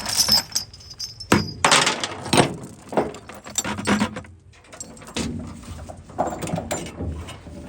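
A string of sharp metal clanks and knocks, irregular and loudest in the first half, as heavy machine parts and tooling are handled.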